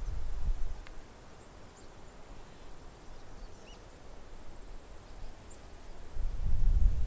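Wind buffeting the microphone in low rumbles, briefly at the start and more strongly from about six seconds in, over faint scattered high chirps from a large flock of swallows. A thin steady high tone runs underneath.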